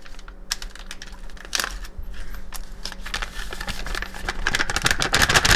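Crinkling of a Keto Chow powder packet as it is tipped and shaken to pour its powder into a stainless steel mixing bowl. A rapid run of crackles grows denser and louder toward the end.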